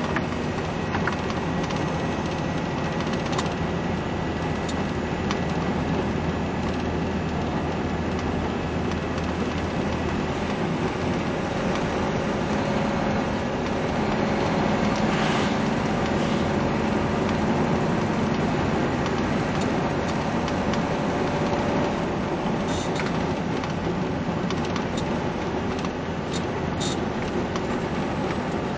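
Steady road noise heard from inside a moving vehicle on a wet highway: low engine hum under a constant hiss of tyres on wet pavement. About halfway through the noise swells briefly as an oncoming car passes.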